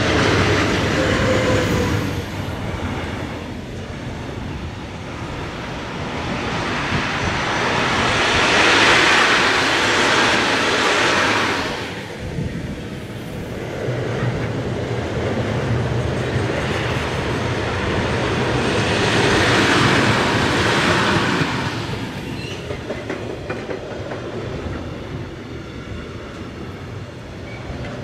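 Long electric-hauled intermodal freight train of container and tank-container wagons passing close by. The wheels roll and clatter on the rails throughout. The noise swells loudest three times: at the start, about a third of the way in, and about two-thirds in.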